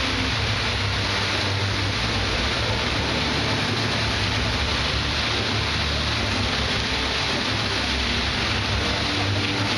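Fountain water jets falling back into the pool: a steady rushing splash of many streams of water.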